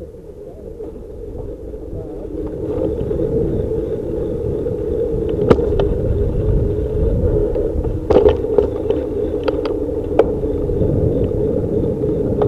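Steady rumble of a bicycle riding along a city street, heard through a handlebar-mounted camera with wind and road noise, growing louder over the first few seconds. A few sharp clicks and knocks come in the second half.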